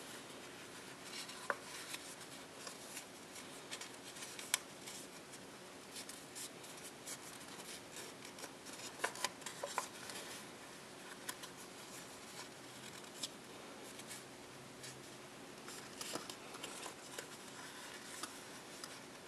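Printed copy paper being folded and creased by hand: soft rustling and rubbing, broken by short sharp crackles of the paper, the loudest about a second and a half in, at four and a half seconds and around nine seconds.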